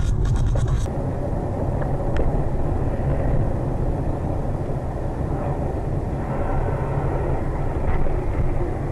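Steady road and engine rumble of a car driving at speed, heard from inside the cabin through a dashcam's microphone. A louder, harsher sound with crackle cuts off abruptly just under a second in.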